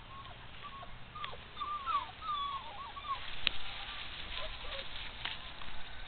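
A quick run of short, high-pitched calls that bend up and down in pitch, from an animal, during the first three seconds, followed by a few sharp clicks.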